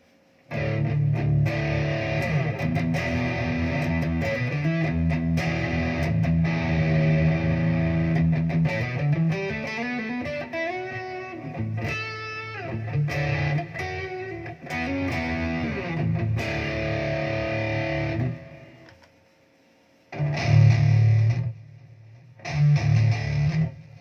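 Electric guitar played through a Zoom G1Xon multi-effects pedal on a distorted patch: sustained chords and riffs with sliding pitches, stopping about 18 seconds in, then two short chord hits near the end.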